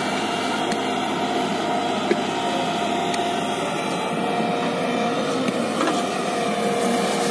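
JCB tracked hydraulic excavator's diesel engine running with a steady drone while the boom and bucket work a pile of sand.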